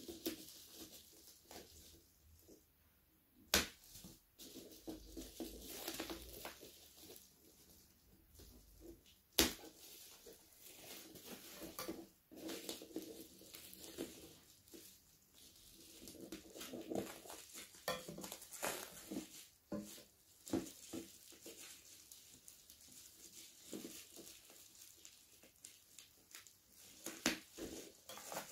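Bubble wrap around a boxed figure crinkling and rustling as hands handle it, with irregular small crackles and two sharp clicks about six seconds apart.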